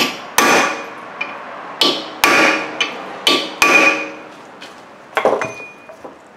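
Hammer striking a hand driver set in a brake-rotor retaining screw to shock it loose: about six sharp, ringing metal blows in quick pairs over the first four seconds, then a lighter metallic clank about five seconds in.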